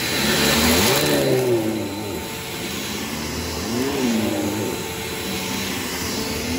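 Bissell PowerGroom bagless upright vacuum cleaner running while being pushed back and forth over carpet. The steady motor and airflow hum swells and dips in pitch several times, loudest about a second in.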